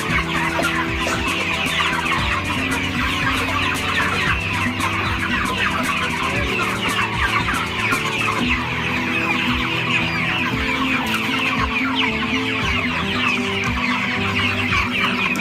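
A large flock of chickens clucking and chattering continuously, many birds calling at once, over background music with steady held low notes.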